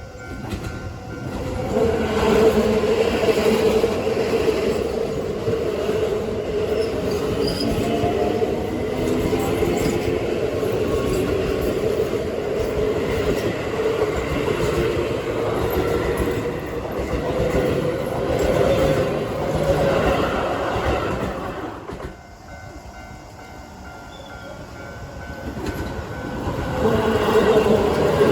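Keio Line electric trains running through a level crossing, wheels clacking on the rails, with the crossing's warning bell ringing. One passage lasts about twenty seconds, then after a short lull another train comes through near the end.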